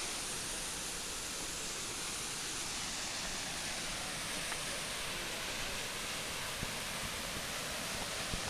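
Steady, even rush of falling water from a waterfall, a continuous hiss with no breaks.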